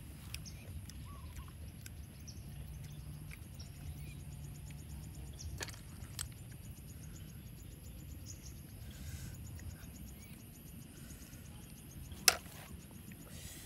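Snail shells clicking as they are handled over a metal wok and their meat is picked out with a pin: a few light clicks midway and one sharp, louder click near the end, over a low steady outdoor background.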